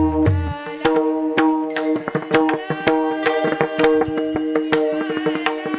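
Devotional kirtan accompaniment with no singing: a hand drum plays quick strokes over a steady held chord. Deep bending bass strokes come in the first half second, then a fast run of sharp strokes.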